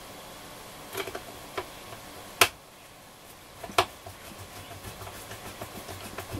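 Sharp clicks and knocks of small metal parts and a tool handled against a transistor radio's chassis during reassembly. There are four distinct clicks, the loudest about two and a half seconds in, then light, fast ticking from about four seconds in.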